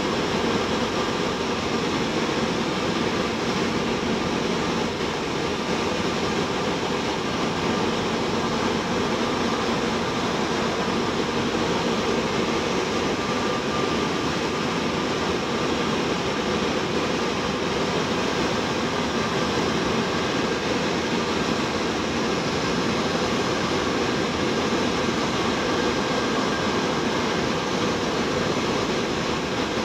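Cessna 172M's four-cylinder Lycoming O-320 engine and propeller running steadily in flight, with the rush of air over the airframe, heard inside the cabin. The level holds even throughout.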